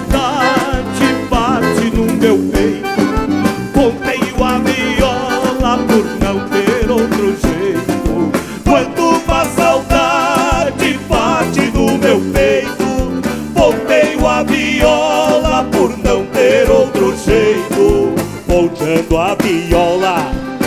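Live band music with a steady beat: accordion and acoustic guitars over bass and drums, playing an instrumental passage between choruses of a gaúcho song, with some voices singing along.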